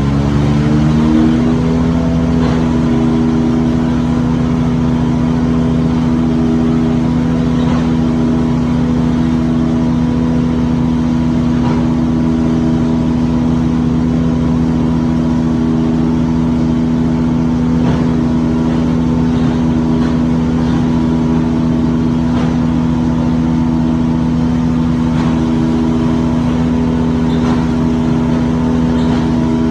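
An engine revs up in the first second or so, then runs steadily at high speed, with faint scattered clicks over it.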